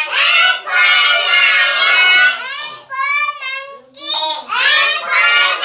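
A toddler's loud, high-pitched voice calling out in several drawn-out shouts with short breaks, reciting from an alphabet chart while playing teacher.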